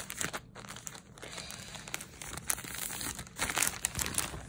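Plastic clothing packaging bags crinkling and rustling as they are handled, with irregular crackles throughout.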